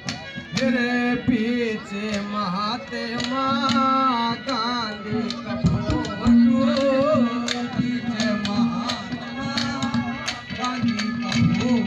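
A male singer performs a Haryanvi ragni through a PA system, his voice gliding and wavering over long held notes, with a hand drum keeping a steady beat.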